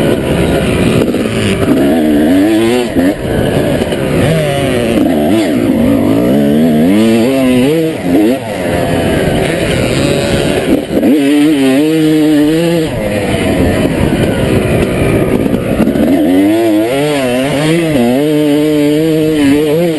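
Honda motocross dirt bike engine ridden hard, its pitch rising and falling again and again with throttle and gear changes, with brief drops when the throttle is closed.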